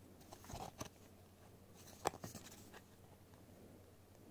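Faint handling noises of a small paper card being turned over between the fingers: a few soft clicks and rustles, the sharpest about two seconds in.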